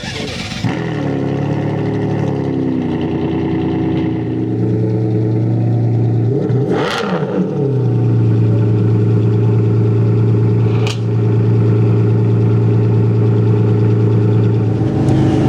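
Ferrari Enzo's V12 engine just after start-up, its idle wavering and then settling. About seven seconds in the throttle is blipped once, a quick rise and fall in revs. The engine then holds a steady, slightly higher idle.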